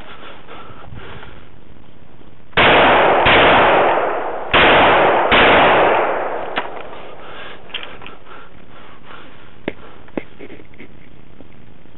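Four loud shots from an FN FS2000 bullpup rifle in 5.56 mm, fired as two pairs with a little over a second between the pairs; each shot rings out and fades slowly. A few faint sharp ticks follow.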